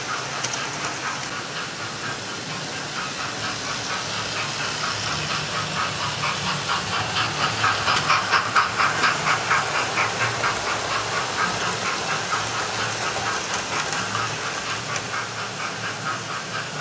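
Model railway trains running on the layout's track, with a steady rhythmic beat of about three or four a second that swells to its loudest about halfway through as a train passes close, then eases off.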